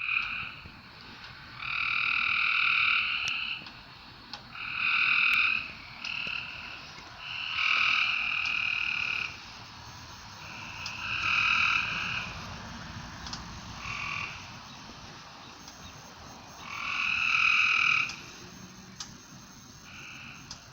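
Frog calls: a series of buzzy calls, each about one to two seconds long, repeated every few seconds with shorter, softer calls in between.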